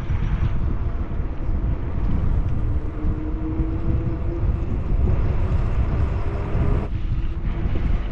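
Wind buffeting the microphone, a loud, steady rumble, with a faint steady hum underneath; it eases briefly about seven seconds in.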